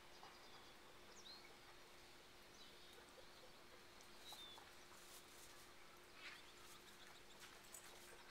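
Near silence with a faint steady hum, a few faint bird chirps, and scattered soft clicks.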